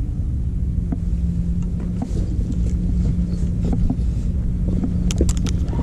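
Steady low rumble of wind buffeting the camera microphone, with a faint steady hum under it and a few scattered light clicks, a quick run of them near the end.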